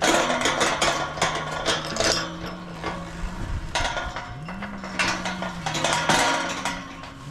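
Steel pipe livestock gate rattling and clanking as it is gripped and swung, a dense run of metallic knocks with a short lull about halfway through. A steady low hum runs underneath.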